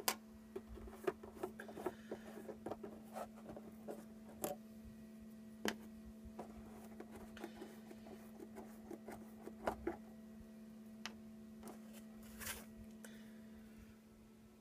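Hands handling a hard plastic quadcopter frame: scattered light clicks, taps and scrapes, with a slightly louder scrape near the end, over a steady low hum.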